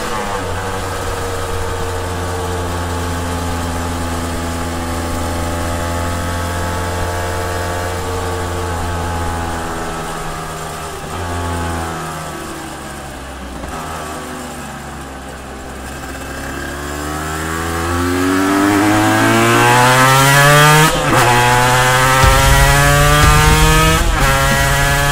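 A 1993 Suzuki RGV250 (VJ22), a 90° V-twin two-stroke built up with TYGA and VHM performance parts and rejetted, riding along. It holds a steady note, then the revs fall away for several seconds before it accelerates again, the pitch rising sharply with two quick upshifts near the end.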